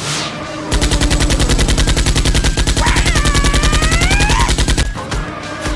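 Rapid automatic gunfire, in the manner of a machine-gun sound effect, about ten shots a second for roughly four seconds before stopping abruptly. A pitched sound glides upward partway through the burst.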